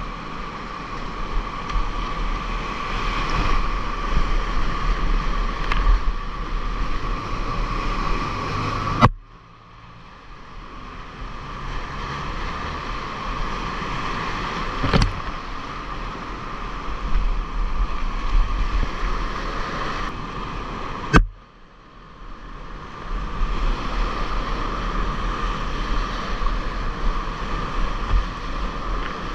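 Whitewater rushing around a kayak running river rapids, picked up close on a camera worn by the paddler, with water noise on the microphone. Twice, about nine seconds in and again about twenty-one seconds in, a sharp slap is followed by a few seconds of duller, quieter sound.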